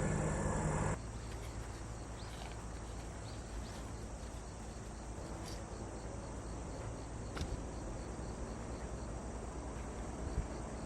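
Insects chirping in a steady, even rhythm, high-pitched, over a low background hum, with a few faint clicks. A louder low sound cuts off abruptly about a second in.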